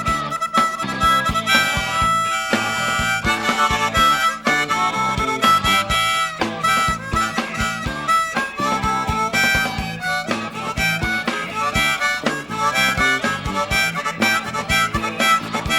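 Live band playing an instrumental passage: a harmonica carrying the lead with wavering held notes, over guitar and a steady beat.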